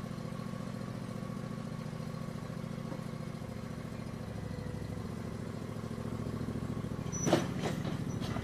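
John Deere E140 lawn tractor's V-twin engine running steadily, growing slightly louder as the tractor approaches. A sharp clank about seven seconds in, followed by two or three lighter knocks.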